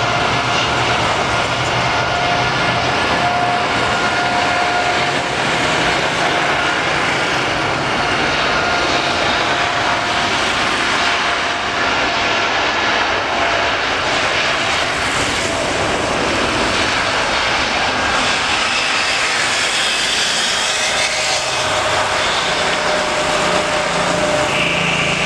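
Boeing 787-8's twin turbofan engines at takeoff thrust during the takeoff roll and lift-off: a steady jet roar with a faint whine running through it.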